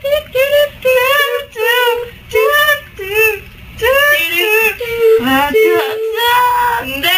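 A high voice singing short phrases whose pitch swoops up and down, with a longer held note about five seconds in.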